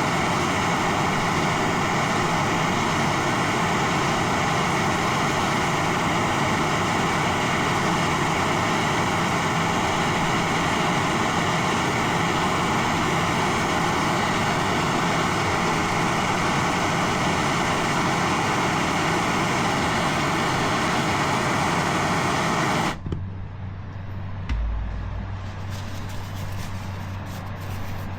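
Handheld gas torch burning with a loud, steady hiss while heating the part for an Alumaweld aluminium brazing repair. The torch cuts off suddenly near the end, leaving a low hum and one dull thump.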